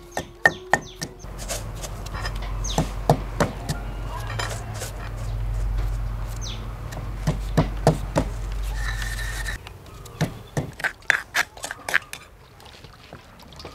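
Scattered clicks and scrapes as seasonings are added to a stone mortar, over a low steady rumble. Near the end comes a quick run of sharp knocks from a wooden pestle pounding chili in the stone mortar.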